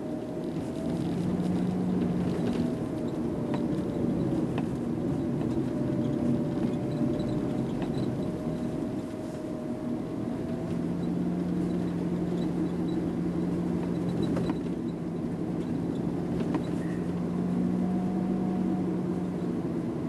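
Car driving at steady road speed: a continuous low engine hum and tyre noise on the road, with the engine's pitch drifting gently as the speed changes.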